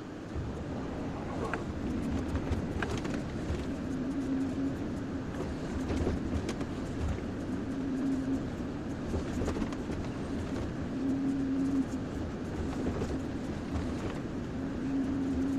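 Kobelco SK-140XM excavator's diesel engine running under working load, with a held tone that comes in for about half a second every three to four seconds, and scattered short knocks and clatter through it.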